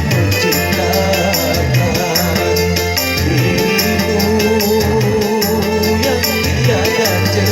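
Music from a song cover, apparently an instrumental passage: a fast, even percussion beat in the highs over a held bass line, with a winding melody line in the middle.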